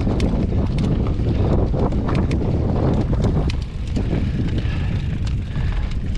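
Wind rushing over the microphone of a mountain bike rider moving along a rough dirt trail, with frequent sharp clicks and rattles from the bike jolting over the ground. It eases slightly a little past halfway.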